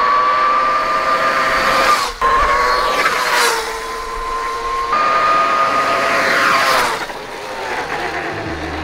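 Electric motor whine of a 1993 Kawasaki KX250 converted to electric, its QS138 mid-drive motor under a Fardriver controller, as the bike is ridden. A steady high whine shifts in pitch abruptly about two and five seconds in, then falls and fades about seven seconds in.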